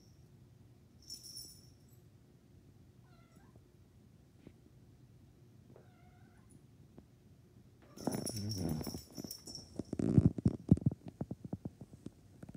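Domestic cat at play: a small collar tag or bell jingling and two faint short meows, then about two-thirds in a louder, longer animal cry with more jingling, followed by a rapid run of sharp knocks and scuffles that are the loudest part.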